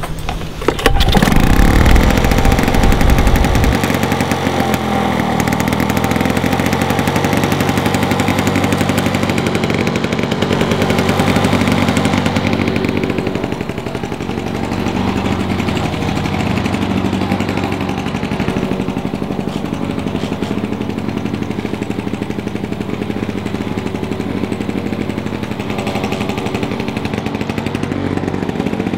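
Two-stroke lawn mower engine, loud from about a second in and then running steadily, a little quieter through the second half.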